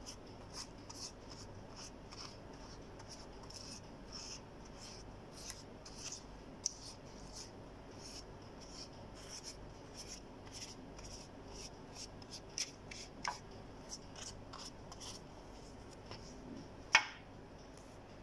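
Silicone pastry brush dabbing and stroking olive oil onto raw sambusa pastry: soft, repeated brushing strokes, with a sharp click near the end.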